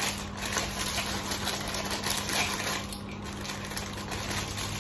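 Clear plastic bag crinkling and rustling as it is torn open and the nebulizer tubing inside is handled, with a steady low hum underneath.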